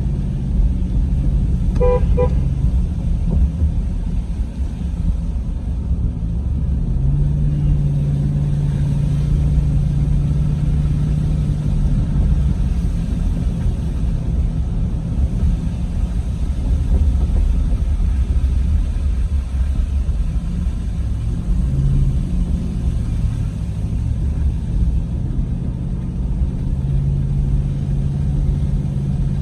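Vehicle driving, heard from inside: steady low engine and road rumble with an engine drone that comes and goes as the load changes. A brief pitched beep about two seconds in.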